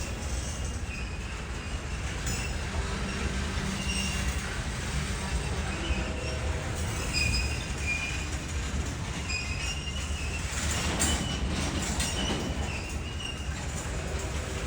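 Train rolling along the rails with a steady low rumble and short, high-pitched wheel squeals coming and going. There is a louder rush of noise about eleven seconds in.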